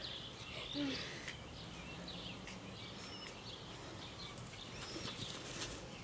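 Small birds chirping and twittering steadily in the background. About a second in there is a brief low sound, and near the end a quick run of sharp clicks.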